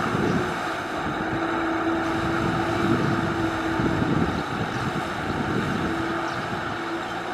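Tractor engine running steadily, working hard while ploughing through deep mud.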